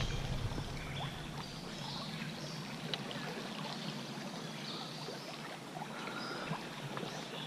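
Shallow, shin-deep trout-stream riffle flowing: a steady rush and trickle of moving water.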